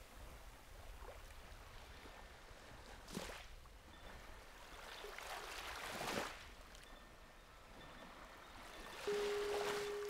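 Small sea waves washing onto the shore in gentle swells, the biggest about three and six seconds in. Near the end a Tibetan singing bowl is struck and rings on with one steady tone.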